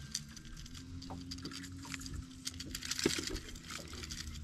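Fishing pliers and lure hooks clicking and rattling lightly as the hooks are worked out of a caught fish, with a small knock about three seconds in. A faint steady hum runs under the first couple of seconds.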